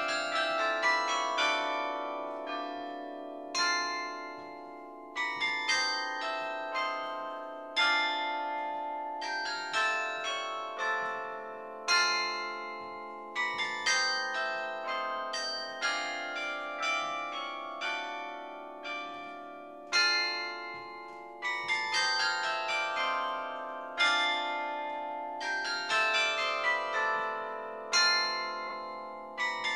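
Carillon bells played by hand from the baton keyboard: a melody of struck bells, each ringing on under the next, with stronger strokes about every two seconds.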